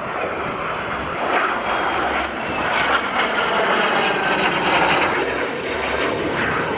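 Formation of L-39 Albatros jet trainers flying past overhead, the rushing roar of their single turbofan engines swelling about a second in, loudest midway, and easing slightly near the end.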